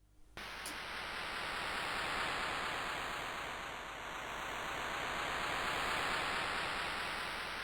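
Electronic noise hiss from an Amiga intro's soundtrack, starting suddenly about half a second in, with a slow whooshing sweep that slides down and then back up.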